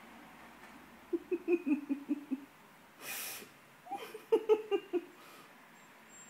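A person giggling in two short runs of quick, pulsing laughs, with a sharp breath drawn in between them.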